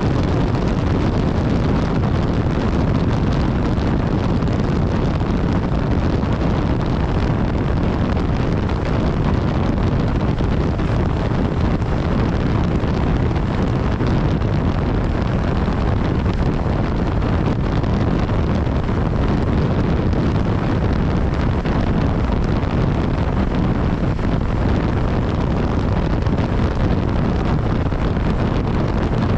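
Steady wind rush on the microphone of a motorcycle ridden at a constant speed, with the BMW S1000XR's engine and tyre noise underneath, unchanging throughout.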